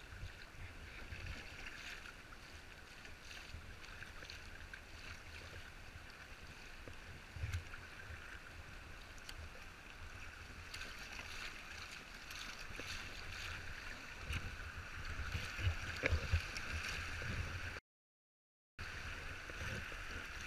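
River water rushing and gurgling steadily around a packraft, over a low rumble, with a few knocks now and then. About a second of dead silence near the end.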